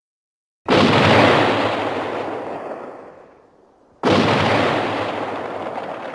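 Two gunshot sound effects from vintage Disney cartoons, each a sudden loud blast trailing off in a long fading rumble. The first comes just under a second in and the second about four seconds in.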